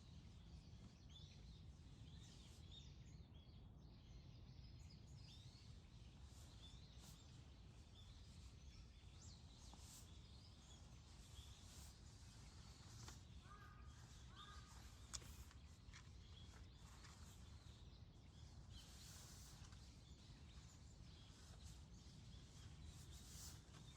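Faint outdoor ambience: scattered small bird chirps and calls over a low steady rumble, with one sharp click about fifteen seconds in.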